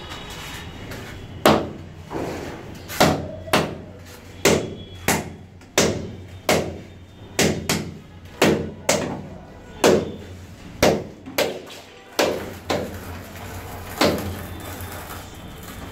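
Ceramic wall tile being tapped into place on a bed of cement-based tile adhesive: about eighteen sharp knocks at an uneven pace of one or two a second.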